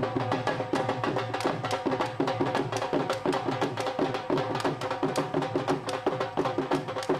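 Instrumental music with fast, steady hand-drum strokes over sustained held instrument tones, without singing.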